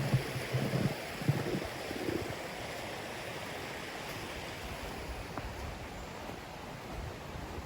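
Forest stream rushing steadily over small cascades. A few soft low thumps come in the first two seconds.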